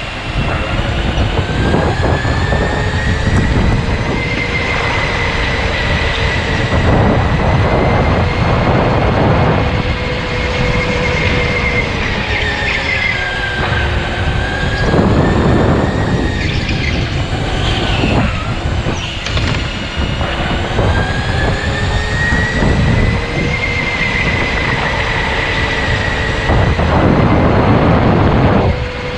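Electric go-kart motor whining at speed, its pitch rising and falling over a few seconds at a time as the kart speeds up and slows, over a rough rushing noise with several louder surges.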